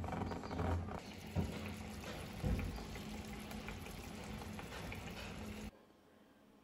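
Rice and water boiling hard in a covered pot: a steady bubbling with a few short knocks. It cuts off suddenly about five and a half seconds in, leaving a quiet room.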